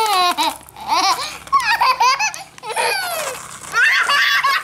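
A young child laughing and squealing in several short, high-pitched bursts, the pitch sliding down within them.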